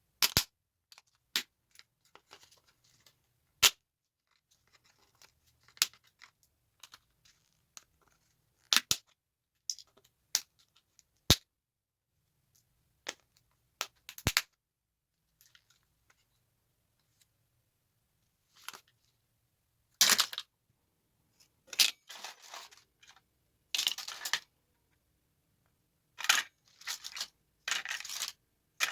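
Small tactile switches being taken apart by hand: irregular sharp clicks and snaps. In the later part come longer bursts of scraping and rustling.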